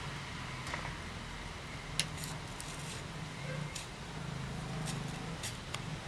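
Knife cutting through a raw green mango held in the hand: a handful of short, crisp cuts at irregular intervals, the sharpest about two seconds in.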